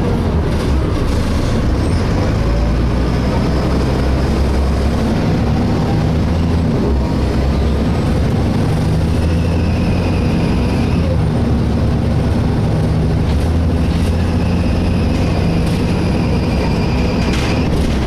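Volvo B7LA articulated bus heard from inside while driving: a steady diesel engine and driveline rumble, with a thin high-pitched screech coming in for a couple of seconds about halfway through and again near the end, followed by a knock.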